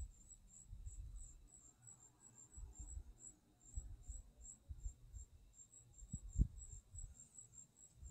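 Cricket chirping steadily, a high-pitched chirp about five times a second, with a few soft low thumps underneath.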